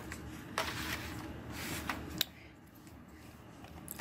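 Paper instruction sheet rustling as it is handled, in two short bursts, with a single sharp click a little over two seconds in, then quieter handling.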